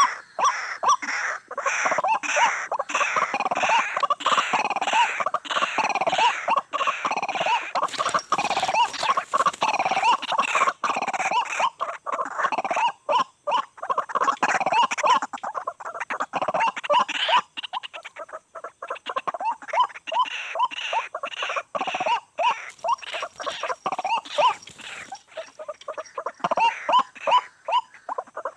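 White-breasted waterhen (ruak-ruak) calling: a long, dense series of quick repeated calls, easing off briefly past the middle and then starting up again.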